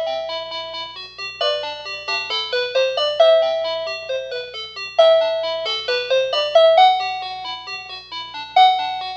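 A toy telephone's electronic chiming melody: a run of quick, bell-like notes, each struck sharply and ringing out, playing on continuously.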